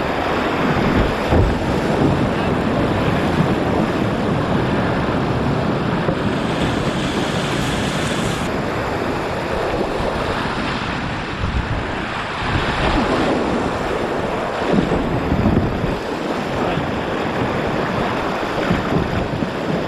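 Whitewater rapids rushing steadily, with wind noise on the microphone.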